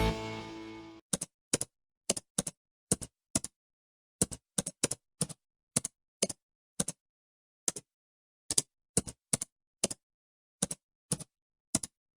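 Typewriter-style typing sound effect: about twenty crisp key clicks at an uneven typing pace. Background music fades out just before the clicks begin.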